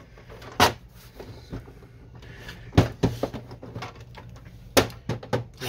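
Several sharp plastic clicks and knocks from an inkjet printer's plastic scanner lid and top cover being handled and lifted open, the loudest about three seconds in and a cluster near the end.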